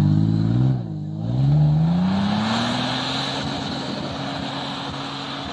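Toyota FJ Cruiser's 4.0 V6 revving hard as it pulls away through deep snow, its tyres churning and spraying snow. The revs drop sharply about a second in, then climb again and hold, fading as the truck moves off.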